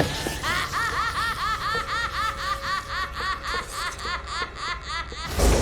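Long, high-pitched cackling laugh: a rapid string of short 'ha' pulses, about five a second, each rising and falling in pitch. It breaks off near the end into a sudden low boom.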